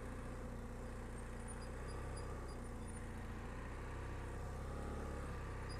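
BMW F 800 GS parallel-twin engine running steadily at low revs in first gear, its pitch wavering only slightly as the clutch is slipped at the biting point for walking-pace riding.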